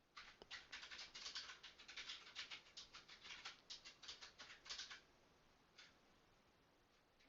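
A quick, irregular run of faint clicks and crackles for about five seconds, then one more single click.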